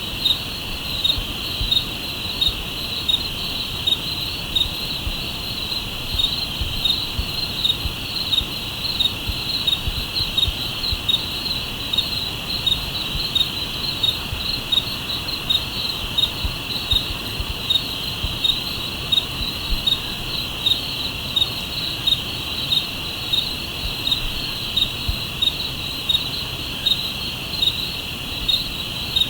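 Night crickets: a steady high trill with a louder chirp repeating about twice a second over it. Beneath them runs a low, even rush.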